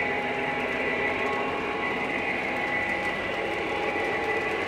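Lionel O-gauge model trains running on the layout: a steady mechanical hum and rumble with a few high, held tones over it.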